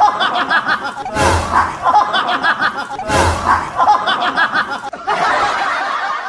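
Laughter sound effect, the same short burst of chuckling repeated about every two seconds, each repeat opening with a low thump. About five seconds in it gives way to a denser stretch of laughter.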